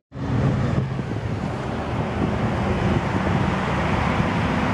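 Steady outdoor background noise with a low hum: wind on the microphone and road traffic. It starts just after a brief cut-out at the very start.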